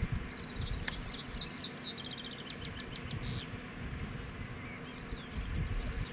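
A small songbird singing phrases of quick high notes, including a fast even trill of about eight notes, with a second short phrase near the end. A single sharp click comes about a second in, over a steady low rumble.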